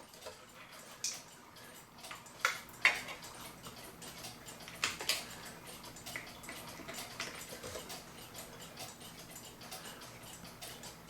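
Scattered light clicks and taps of small clock parts being handled, irregularly spaced, after the clock's hands have been pulled off.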